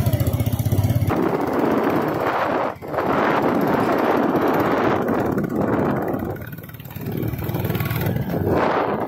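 A motor vehicle engine idling with an even low throb for about the first second, then a loud, steady rushing noise that dips briefly a few times.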